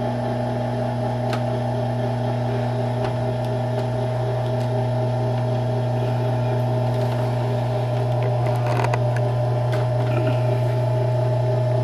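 Treadmill motor and belt running steadily: a constant hum with a faint regular pulse in it, and a few light clicks scattered through.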